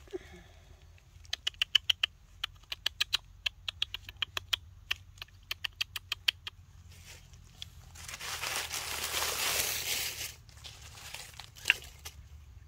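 A baby macaque sucking on a person's thumb makes quick, sharp wet clicks, several a second, for about five seconds. Then come a couple of seconds of rustling and one sharp click near the end.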